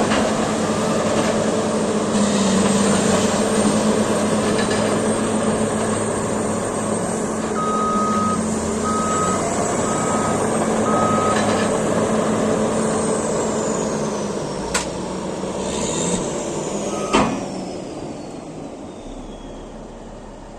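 Caterpillar D8T bulldozer's diesel engine running steadily, with its backup alarm giving four short beeps partway through. Near the end come two sharp clicks and a high whine falling in pitch as the engine sound drops away.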